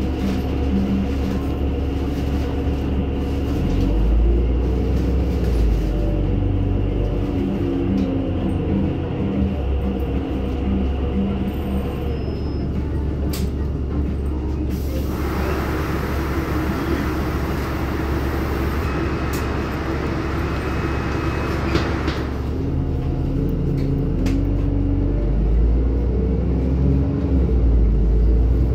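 NefAZ-5299 city bus under way, heard from inside: a steady engine rumble whose note rises twice as the bus gathers speed, once early and once near the end. An even hiss lasts about seven seconds in the middle.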